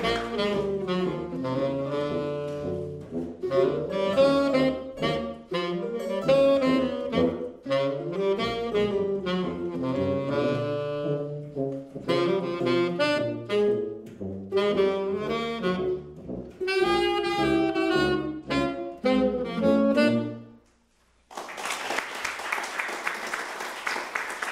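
Small jazz trio of saxophone, tuba and electric archtop guitar playing a blues, with the saxophone carrying the melody over the tuba's bass line. The tune ends about twenty seconds in, and after a short gap the audience applauds.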